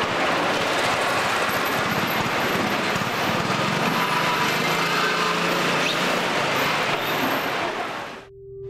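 Steady rattling rumble of a wooden handcart carrying a whole tuna, rolling over a concrete market floor, fading out near the end.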